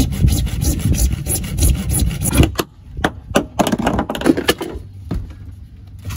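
Hand saw cutting through 1¼-inch PVC pipe with steady back-and-forth strokes, which stop about two and a half seconds in. A few scattered clicks and knocks follow as the saw and pipe are handled.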